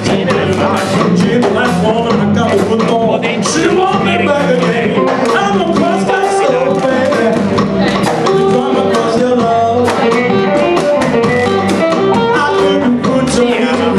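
Live electric blues band playing, with electric guitars over a steady beat.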